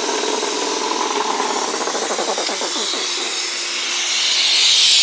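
Belt-driven Bendix-Westinghouse Tu-Flo 400 truck air brake compressor winding down after its power is cut, its running note falling in pitch as it coasts to a stop. About four seconds in, a loud hiss of escaping air builds up.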